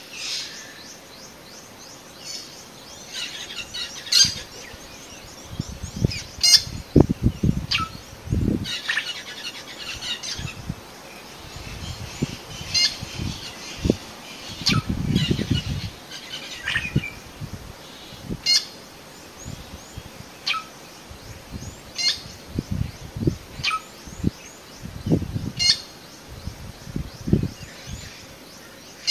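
Short, high chirping calls repeated every second or two, many of them falling in pitch, with low rumbling bumps in between.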